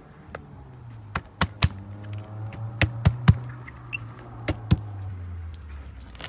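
Sharp knocks in quick groups, three, then three, then two, over a low steady hum.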